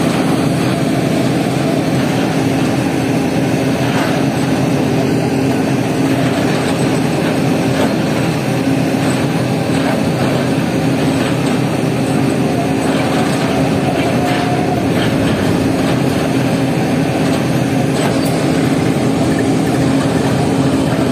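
Heavy construction machine's diesel engine running steadily, a constant droning hum.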